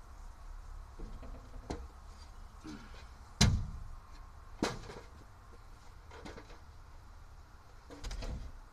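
A few separate sharp knocks and clunks of hard objects being handled and set down. The loudest comes about three and a half seconds in, with another just over a second later and fainter ones around them.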